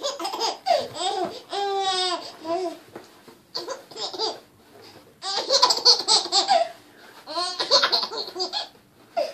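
A baby laughing in several bursts of giggles, with a long high squeal about two seconds in.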